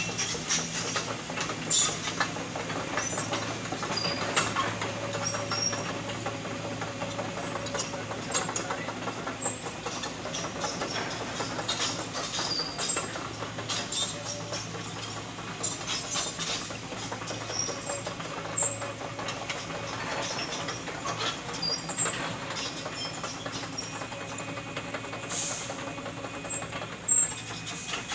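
Heavy diesel excavator engine running steadily, with irregular metallic clanks and knocks from the machine working the load.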